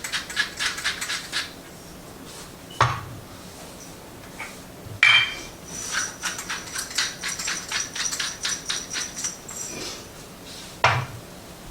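Rapid light clicking and clinking of kitchen utensils at a skillet in two quick runs, with single louder knocks about three, five and eleven seconds in.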